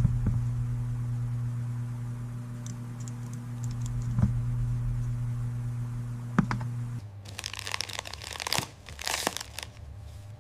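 Steady low hum with a few faint clicks, which drops away about seven seconds in, followed by a couple of seconds of scratchy rustling handling noises.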